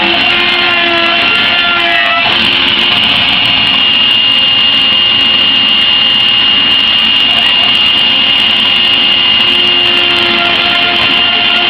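CNC Shark router spindle running with a steady high whine while a V-bit cuts. Beneath it are lower machine tones that shift in pitch about two seconds in and again near the end.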